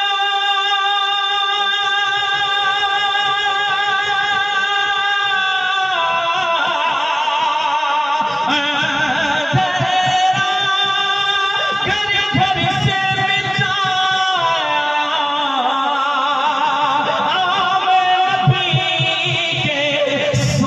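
Devotional music between verses of a naat: a long held note, then a wavering, heavily ornamented melody, carried by wordless singing.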